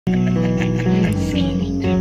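Amplified electric guitar played as a loud, sustained drone of held notes, the pitches shifting about a second in and again near the end.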